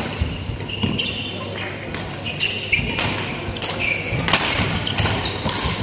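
Badminton rally: rackets hit the shuttlecock with sharp hits about once a second, and shoes squeak briefly on the court floor between shots, in a large indoor hall.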